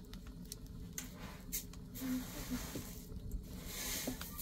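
Wood fire crackling, with scattered sharp pops and a short stretch of hiss near the end.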